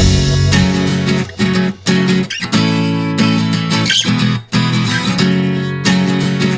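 Background music led by a strummed acoustic guitar, with short breaks between strums.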